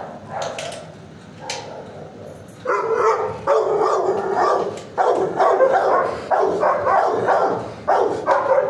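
Dogs barking repeatedly in an animal shelter kennel, fainter at first, then loud runs of barks from about three seconds in.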